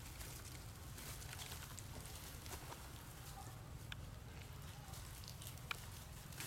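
Faint crackling and rustling of dry leaf litter as long-tailed macaques move about on it, with a few sharp clicks, over a low steady rumble.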